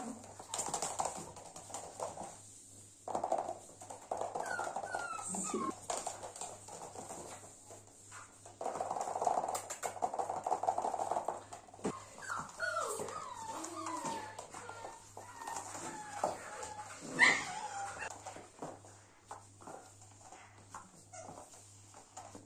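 Corgi puppies tugging at toys, giving high, gliding whines and yips, with one loud yelp about seventeen seconds in.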